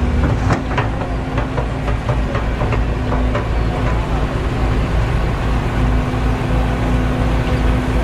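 Steady engine drone from construction machinery with a constant hum and low rumble. It is broken in the first few seconds by a run of about nine sharp knocks, roughly three a second.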